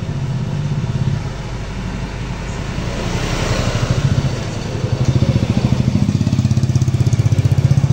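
Motorcycle engine idling close by with a steady, fast low putter; another motorcycle passes about three to four seconds in, adding a brief swelling hiss.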